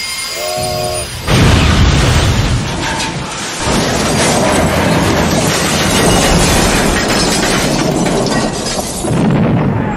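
Added train-crash sound effect: a brief horn-like chord, then about a second in a loud, dense crashing noise that runs for several seconds, with a short dip a few seconds in.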